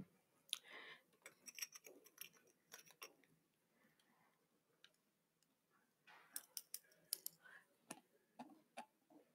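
Near silence broken by faint, scattered clicks and light taps of makeup tools and containers being handled. The clicks come in two clusters, one early and one about six to nine seconds in.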